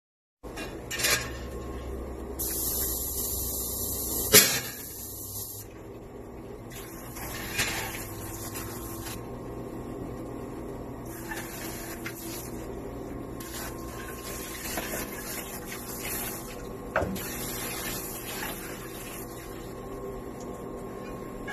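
Water spraying in several bursts from a spring-hose pre-rinse sprayer into a stainless steel sink, with wire baskets clanking against the metal now and then; the loudest clank comes about four seconds in. A steady machine hum runs underneath.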